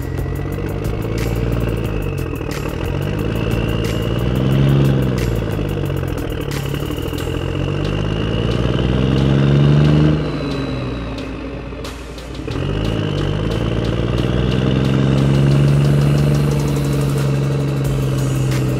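Engine sound of a remote-control John Deere model tractor pulling a loaded low-loader trailer, revving up and down several times in a rising and falling drone, with a dip about two thirds of the way through.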